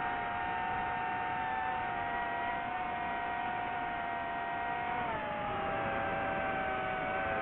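DJI FPV drone's electric motors and propellers whining in flight: several steady tones that drop in pitch about five seconds in, over rushing wind noise.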